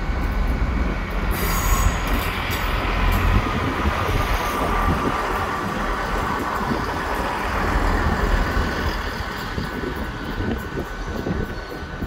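Passenger train on the tracks beside the platform: a steady low rumble with a high, steady wheel squeal on top, and a brief hiss about a second and a half in.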